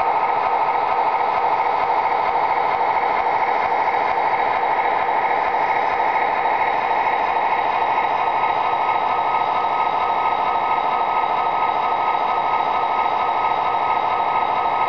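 The MTH Premier Union Pacific SD40-2 model locomotive's Proto-Sound 2.0 system plays a steady diesel engine sound through its small onboard speaker. The sound is thin, with little bass. It is mixed with the whir of the model's motor and its wheels on the track.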